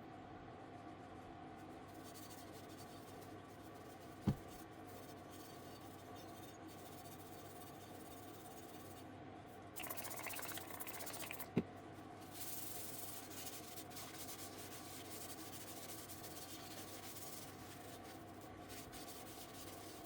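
Spray hissing in a burst of about two seconds, about ten seconds in, then a softer, longer hiss. Two sharp clicks fall about four and eleven seconds in, over a steady low hum.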